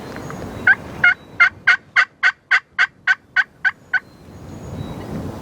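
Wild turkey yelping: a run of about a dozen evenly spaced yelps, roughly three a second, the hen's yelp series. Wind noise rises after it.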